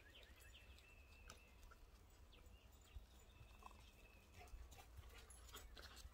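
Near silence: faint scattered footsteps and paw steps on a gravel path, with a low wind rumble.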